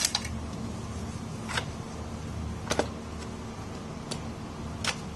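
Light metallic clicks, about five scattered over a few seconds, as a bicycle chain is lifted off the chainring and the crankset is handled.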